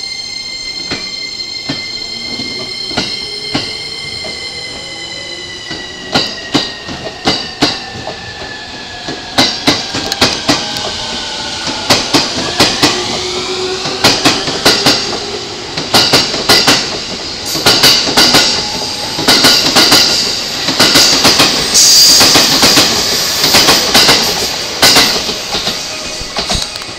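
An E231 series electric commuter train pulling out, its motors whining in a stack of tones that slide down in pitch and then, about halfway through, start climbing as it gathers speed. The wheels clack over rail joints faster and louder as it picks up speed, and the clacking is loudest in the second half.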